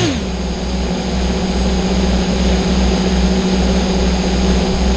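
Racing quadcopter's electric motors armed and idling on the ground: a steady low hum with a slow throb underneath, about two pulses a second.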